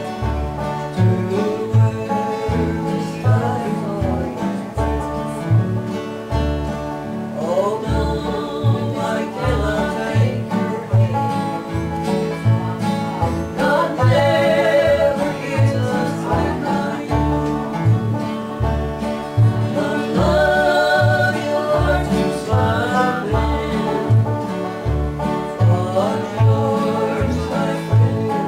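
Live bluegrass-style country music played on acoustic guitars, a five-string banjo and an upright bass, the bass plucking a steady beat of about two notes a second under the banjo and guitar.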